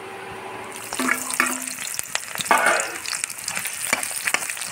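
Onion pieces sizzling in hot oil in a metal pot, starting about a second in, while a steel spoon stirs them with frequent scraping clicks against the pot.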